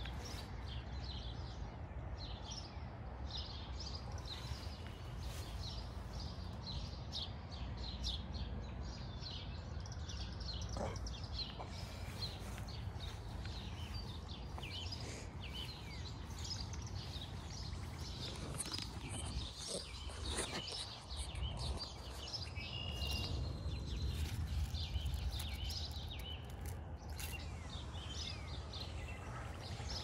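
Several songbirds chirping and singing over one another in a busy morning chorus, over a steady low rumble.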